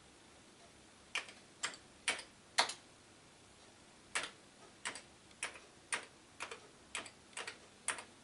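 Keys on the Amiga A500 keyboard being pressed one at a time: four keystrokes, a short pause, then about ten more at roughly two a second, each a single sharp click.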